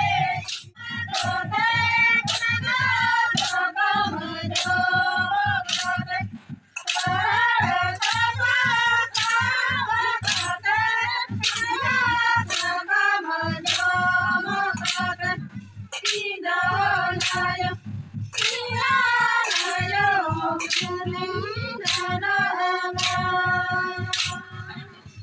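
Group of women singing a Santali Sohrai song together, over a sharp clicking beat that falls about one and a half times a second.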